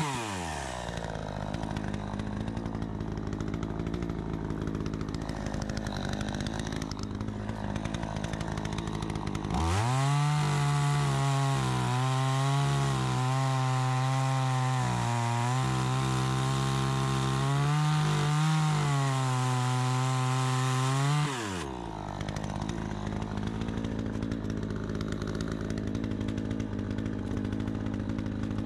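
Troy-Bilt 20-inch two-stroke chainsaw with a freshly adjusted carburetor, dropping from high revs to idle at the start and idling steadily. About ten seconds in it is revved up to full throttle and held there, wavering slightly, for about twelve seconds, then falls back to a steady idle.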